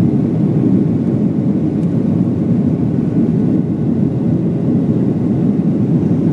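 Boeing 737 cabin noise during the climb after takeoff: a steady, deep rumble of the turbofan engines and rushing air, heard from inside the cabin by the wing.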